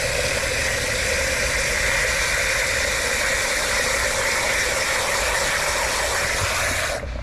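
Garden hose spray nozzle running water hard into a plastic coolant funnel, refilling the cooling system: a steady hiss and splash that cuts off just before the end.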